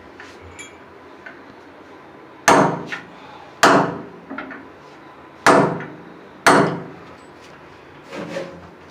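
Hammer striking hard four times, each blow sharp with a short ring after it, the blows about a second or two apart, then a lighter knock near the end.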